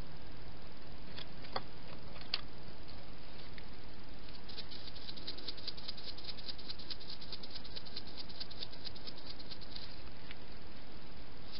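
Hedgehog feeding with its nose down in grass and leaf litter: a few single small clicks, then a fast run of small clicks from about four and a half seconds to about ten seconds in.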